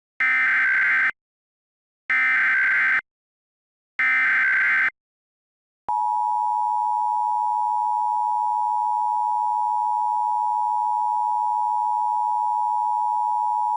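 Emergency Alert System SAME header: three one-second bursts of digital data screech, about a second apart, encoding the alert's originator, event and area. Then the EAS attention signal, a steady two-tone alarm held for about eight seconds and cut off sharply, signalling that an emergency message follows.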